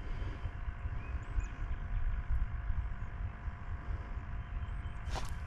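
Outdoor ambience: a low, uneven rumble with a few faint, high, brief chirps, and a short rustle or knock near the end.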